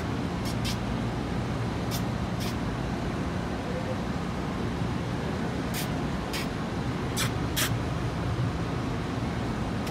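Steady low rumble of street traffic. Short, sharp hissing sounds come in pairs several times over it.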